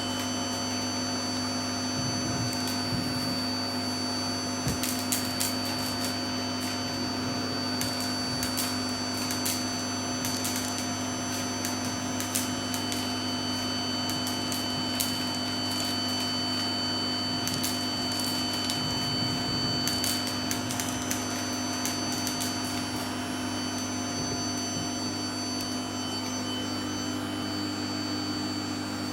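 Vacuum cleaner running steadily with a constant motor hum and whine, while beads sucked up through it click and rattle now and then.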